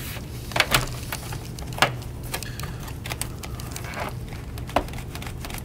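Several sharp plastic clicks and taps from a laptop's plastic bottom panel being pried and flexed by hand while its rear clips hold fast. A pair of clicks comes about half a second in, another just before two seconds, and one more near the end.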